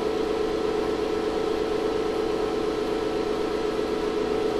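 Steady electrical hum of a 2500-watt ZVS induction heater rig running under load. One strong mid-pitched tone sits over several fainter steady tones, with no change in pitch or level.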